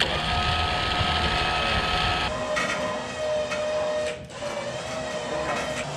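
Electric trailer winch running with a steady motor whine as it pulls the truck onto the trailer; the sound breaks briefly about two and about four seconds in.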